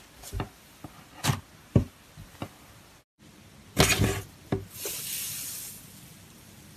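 Cloud slime being squished and stretched by hand, with short wet pops and squishes. About four seconds in comes a louder squish, followed by a soft crackling hiss as the fluffy slime pulls apart.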